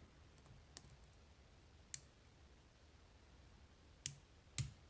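Four faint, scattered metal clicks from a pick and tensioner working in the plug of an iNAHO Tierkey dimple lock, over a near-silent background.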